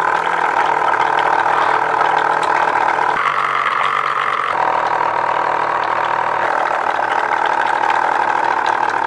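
Homemade air pump driven by a small DC motor on a 9 V battery, running with a steady whine while it blows air through a tube into a glass of water, which bubbles and splashes. Its pitch steps up for about a second and a half, around three seconds in.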